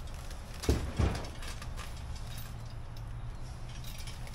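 Two short knocks close together about a second in, from the hoisted engine-and-transmission assembly and its hoist being worked down into a car's engine bay, over a steady low hum.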